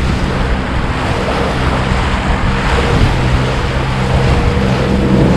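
Boat motor running steadily, its low hum sitting under a broad rush of water and wind noise.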